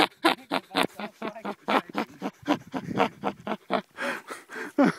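A man laughing in rapid, breathy bursts, about four a second.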